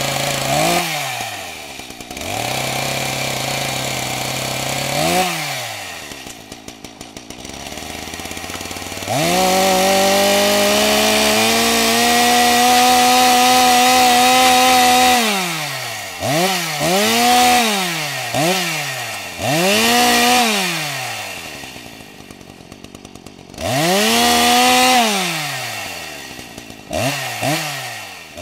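Chainsaw engine idling and revving again and again. One long rev is held high about a third of the way in, and a run of quick rev-ups and drops follows it.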